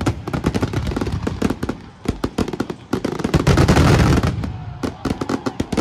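Fireworks going off: a rapid, irregular run of crackling bangs that builds to a dense, loud volley about three and a half seconds in, then thins out.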